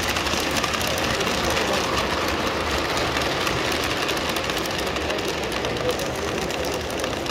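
S gauge model freight train rolling past close by: a steady rumble of wheels and motors on the track, with light clicking as the cars run over the rails.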